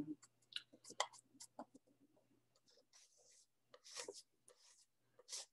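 Palette knife mixing thick oil paint on a palette: faint clicks and taps, with a few short scrapes about three and four seconds in and again near the end.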